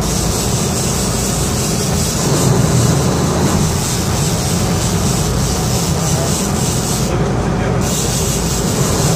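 Steady low rumble of a sport-fishing boat's engines under a constant hiss of wind and churning water; the high hiss dips briefly about seven seconds in.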